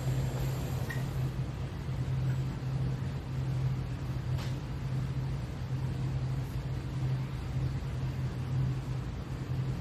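Steady low machine hum over a background wash of noise, with one faint click about four and a half seconds in.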